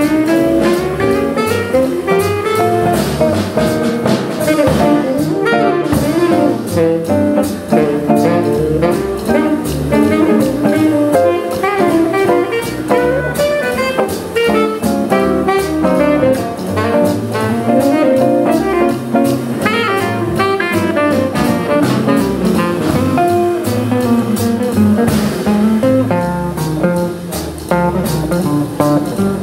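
Small jazz combo playing: a saxophone over archtop electric guitar, upright bass and drum kit, with a steady beat.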